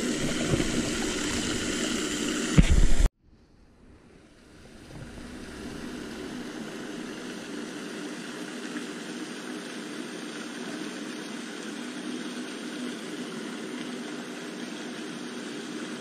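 Steady outdoor hum and hiss, like a distant motor, with a brief loud bump about three seconds in, after which the sound drops out. It builds back over a couple of seconds to a quieter, steady hum and hiss.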